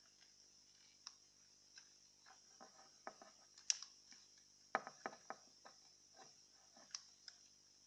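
Faint, irregular clicks and taps of a CFL's glass tubes and plastic base being handled and worked apart by hand, with a few sharper clicks a little past the middle.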